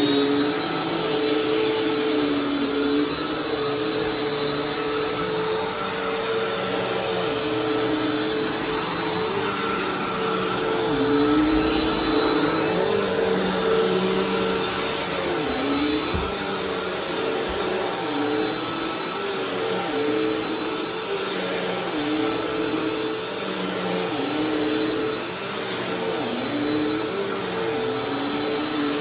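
Bissell vacuum cleaner running steadily as it is worked over new carpet. A lower part of its hum dips and recovers about every second and a half.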